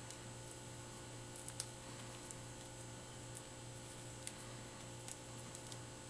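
Faint crackles and small clicks of an HDMI cable's foil-wrapped ribbon cables being twisted and unwound by hand, scattered irregularly with the sharpest about a second and a half in, over a steady low hum.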